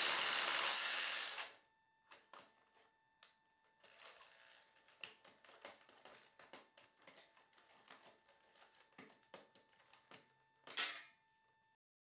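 Power drill boring into the concrete floor through a lift column's base plate for the anchor bolts; it stops about a second and a half in. After that only faint clicks and taps of handling, with one sharper click near the end.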